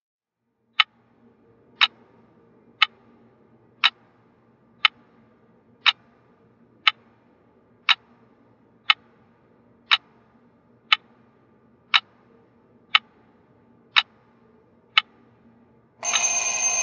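Small quartz twin-bell alarm clock ticking once a second, fifteen sharp ticks, then near the end the alarm bells start ringing loudly.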